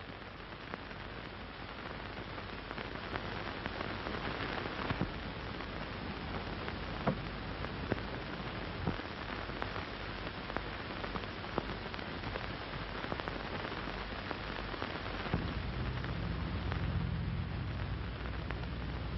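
Steady hiss of an old optical film soundtrack, dotted with scattered crackles and pops; a low hum comes in about three-quarters of the way through.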